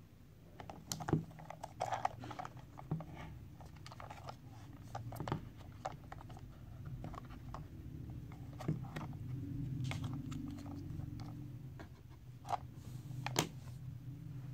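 Hard plastic toy train being handled, with irregular sharp clicks and knocks as it is turned over and its battery compartment cover is unclipped and taken off; a low steady hum runs underneath.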